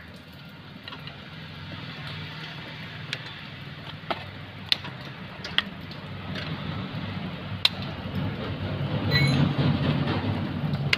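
Nose pliers pressing a small steel lock clip onto the handbrake-lever pin of a brake shoe: a handful of sharp metal ticks and clicks. Behind them a low rumble grows louder in the second half.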